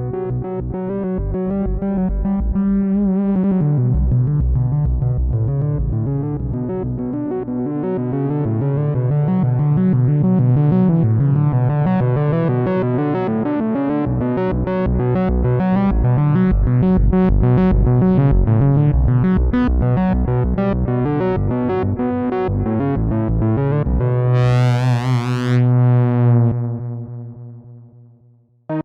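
Moog Matriarch Dark analog synthesizer playing a fast sequenced pattern over a held bass note. Near the end the filter sweeps open to a bright peak and closes again as the sound fades out.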